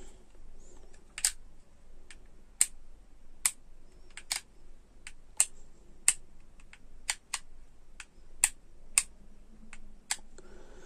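Sharp plastic clicks and taps, about two a second at irregular spacing, from fingers handling an opened plastic LED torch's housing and reflector.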